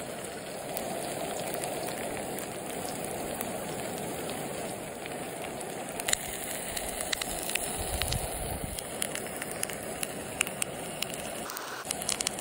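Creamy sauce with diced potatoes sizzling and bubbling in a cast iron skillet: a steady hiss with scattered pops that come more often after about six seconds.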